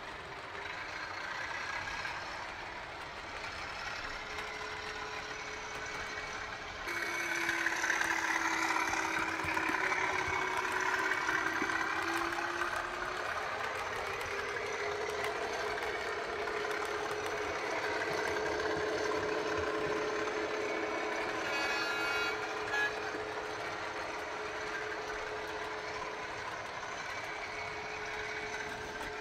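Model railway trains running with digital sound: a model diesel locomotive's engine sound, with the running noise of a container train on the track. The sound gets suddenly louder about seven seconds in, and a short high tone sounds about 22 seconds in.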